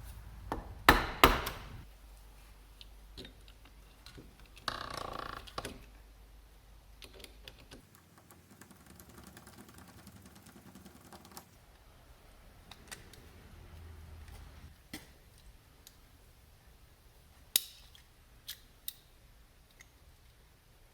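Scattered clicks, taps and knocks of small lock hardware being handled and fitted, with a couple of sharper knocks about a second in and again near the end, and a short rustle about five seconds in.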